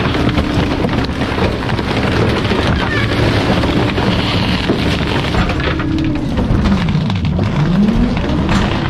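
Garbage truck engine running amid heavy rumbling noise, its pitch dipping and then rising again near the end.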